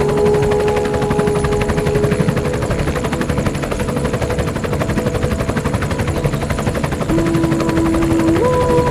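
Rotor aircraft in flight: a steady loud rotor chop with a motor whine that shifts pitch in small steps.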